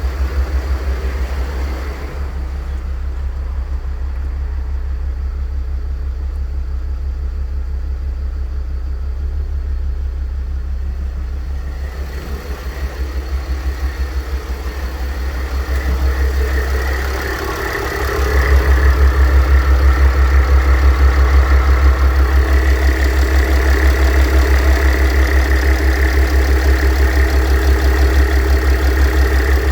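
Mercedes-Benz OM642 3.0-litre V6 diesel idling with a bearing noise from the A/C compressor, the sign of a worn compressor bearing. A little past halfway the sound grows louder, with a higher whirring added over the steady drone.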